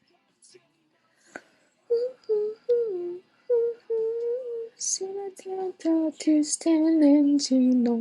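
A woman singing a melody unaccompanied, in short phrases from about two seconds in, with no instruments heard.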